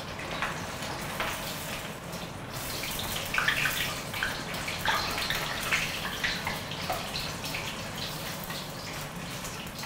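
Pork ribs deep-frying in a wok of hot oil: the oil sizzles steadily with many sharp crackles, which come thickest and loudest in the middle.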